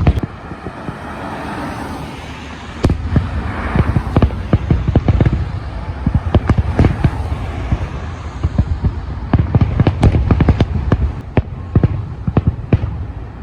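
Aerial fireworks exploding: after a few seconds of steady noise, a rapid string of sharp bangs and crackles sets in and keeps going, with a second dense run of cracks near the end.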